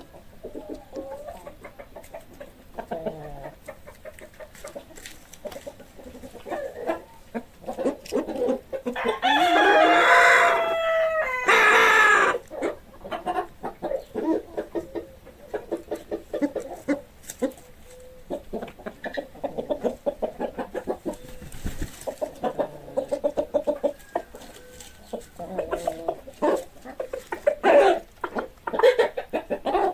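Chickens clucking in a farmyard, with many short calls throughout. A rooster crows once, long and loud, about nine seconds in.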